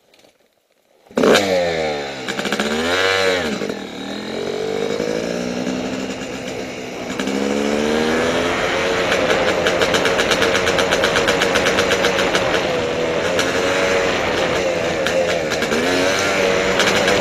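Yamaha YZ250 two-stroke dirt bike engine coming in suddenly about a second in, revving and pulling away with its pitch climbing and dropping several times as it accelerates, then running steadily at speed with another rise near the end.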